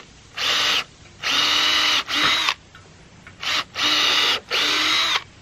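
Cordless drill running in about six short bursts, each a steady whine, as it bores pilot holes into a wooden 4x4 post through the bolt holes of a metal swing-set bracket.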